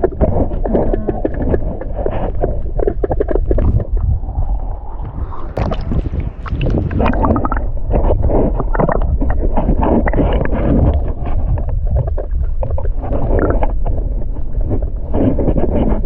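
River water sloshing and splashing right against the microphone, over a steady low rumble of wind on the mic; sharper splashes come about six seconds in.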